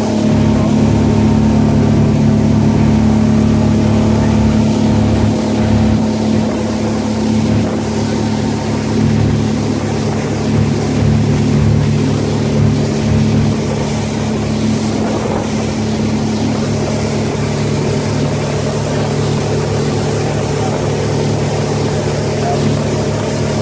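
Motorboat engine running steadily at cruising speed, with the rush of water from the wake beneath it.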